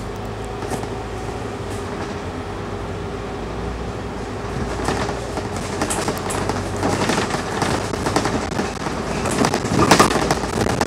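A Scania K310UD double-decker bus heard from inside its cabin while it drives: a steady engine and drivetrain drone with a constant tone. Body panels and fittings rattle over it, getting busier from about halfway and loudest in a jolt near the end.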